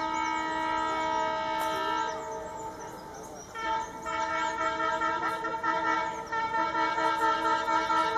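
WDM-3A diesel locomotive's air horn honking in two long, steady blasts: the first lasts about three seconds, and the second starts after a short break.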